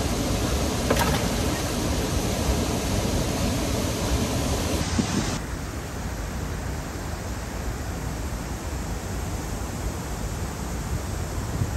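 Steady rushing noise of wind and river water. About five seconds in it drops to a softer hiss.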